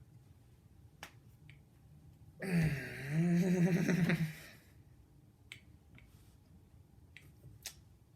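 A man's drawn-out strained groan, lasting about two seconds, in the middle, with a few short sharp clicks scattered before and after it.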